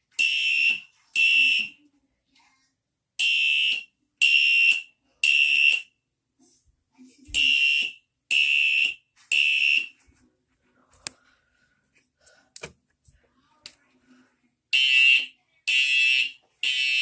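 Fire alarm horn sounding in the temporal-three evacuation pattern: groups of three short, high-pitched blasts about a second apart, with a pause of about a second and a half between groups. After the third group it stops for about five seconds, leaving only faint clicks, then starts again near the end.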